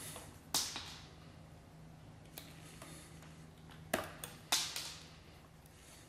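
Wire strippers working on 14-gauge electrical wire: a handful of short, sharp clicks and snips as the jaws close and the insulation is pulled off, over a faint steady low hum.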